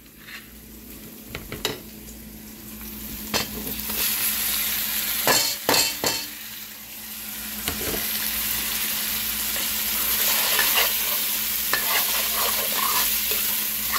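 Chopped tomatoes scraped off a cutting board into a steel pan of frying onions, with a few sharp knocks of board and spoon against the pan. The sizzling then grows louder and turns steady as the pan is stirred.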